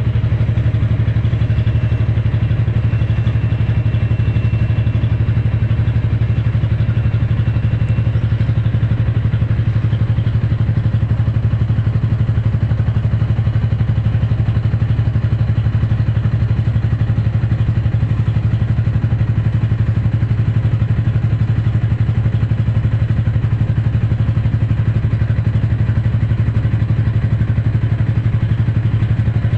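Engine running steadily at constant speed: a loud, low, even drone that does not change throughout.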